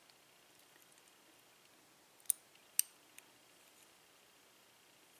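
Two sharp, light metallic clicks about half a second apart, followed by a fainter tick, from a small metal tool working in the plug of a euro cylinder lock being disassembled.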